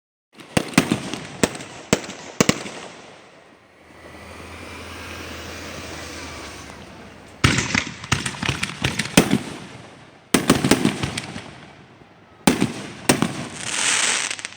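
Fireworks going off in volleys of sharp bangs and rapid crackling. Between the volleys there are stretches of hissing that swell and fade.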